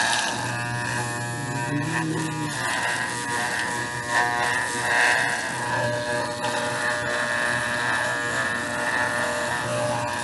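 Corded electric dog clippers running with a steady buzz as they shave the fur on a small dog's head.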